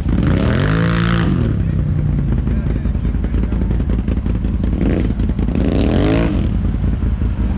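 Can-Am ATV engine running on the trail, revving up and dropping back twice: once about a second in and again near six seconds, over a steady low drone.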